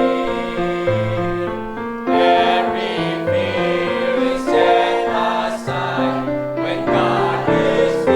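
Church choir singing a slow gospel hymn in held, sustained chords that change every second or so.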